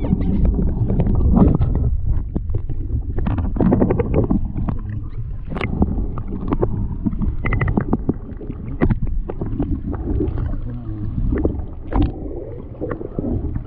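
Muffled water sloshing and gurgling heard through a submerged camera, with many short knocks and bumps, as a freshly caught golden dorado is held in the river to revive it.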